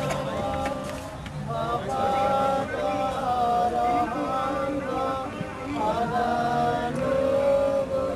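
A group of men chanting a devotional prayer together in repeated, drawn-out phrases of about a second each.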